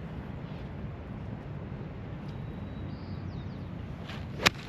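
A golf club strikes a ball once with a sharp crack near the end, over steady outdoor background noise with a few faint bird chirps.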